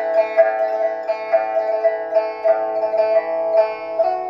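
Instrumental music of plucked string instruments playing through a pair of stereo loudspeakers. Notes are picked about twice a second over a steady held tone.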